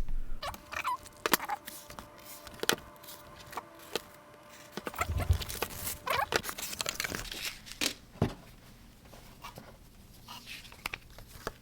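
A cardboard box and its paper packaging being opened and handled: irregular rustling and crinkling, with scattered light taps and clicks as items are lifted out.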